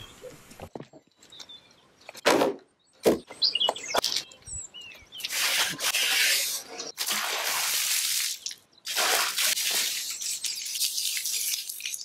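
Wooden knocks as oak boards and stickers are set down on a sawn-lumber stack, then long rough rubbing strokes of hands across the surface of a fresh-sawn burr oak slab. Birds chirp briefly in between.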